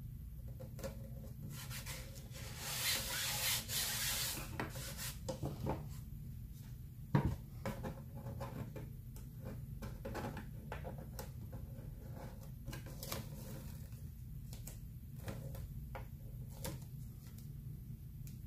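Rubbing and scraping on a hard surface for a few seconds, then scattered light taps and clicks with one sharper knock about seven seconds in, over a steady low hum.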